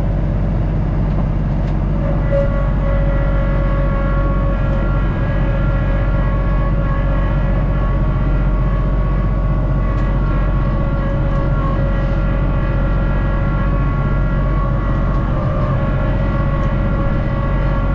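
Kubota B2650 subcompact tractor's three-cylinder diesel engine running steadily as the tractor drives, heard from inside its closed cab. A steady whine joins the engine about two seconds in and holds.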